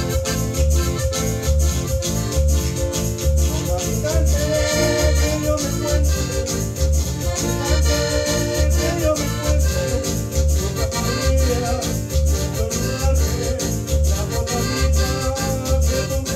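Piano accordion playing a tune over a steady bass beat of about two notes a second.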